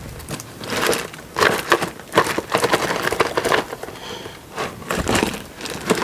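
Packaging being handled and torn open while parts are unpacked: a run of irregular crackling, crinkling and scraping noises.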